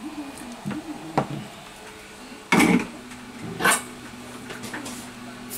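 A few sharp knocks and clicks, the two loudest about two and a half and three and a half seconds in, with a steady low hum coming in after the first of them.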